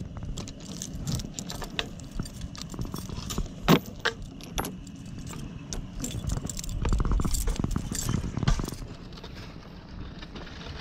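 A heavy metal chain rattling and clinking against a wooden gate post as the ranch gate is unchained, with many sharp clinks and one loud clank about four seconds in. Then a low rumble for a few seconds.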